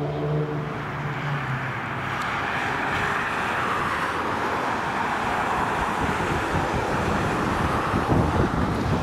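Twin Williams FJ44 turbofans of a Cessna 525A CitationJet CJ2 on final approach: a steady jet hiss and whine that slowly builds. Wind buffets the microphone near the end.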